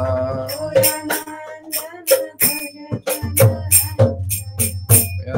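Kirtan accompaniment between sung lines: jingling hand percussion strikes a steady beat, about three times a second, over sustained pitched tones and a few low drum-like thuds.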